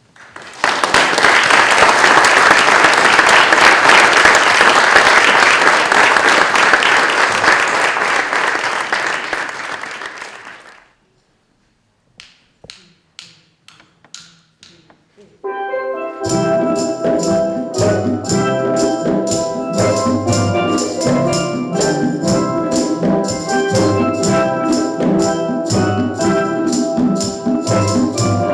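Audience applauding for about ten seconds and fading out. After a brief pause comes a quick run of sharp clicks, like a count-in. Then a steel drum band starts playing, with layered ringing pan notes over a steady beat.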